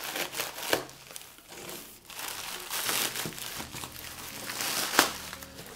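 Plastic mailer bag crinkling and tearing as it is pulled open by hand, with irregular sharp crackles and one loud snap near the end.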